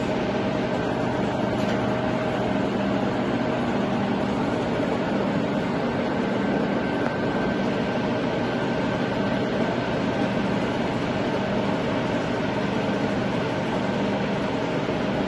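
Sachman bed milling machine's feed drive running a rapid traverse of the axis: a steady mechanical hum with a constant gear whine.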